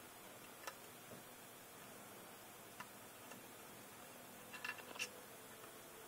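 Faint, scattered clicks of a small plastic barb fitting tapping against a VRIS solenoid's broken air nipple as it is test-fitted: one under a second in, one near three seconds, and a quick cluster of clicks near five seconds.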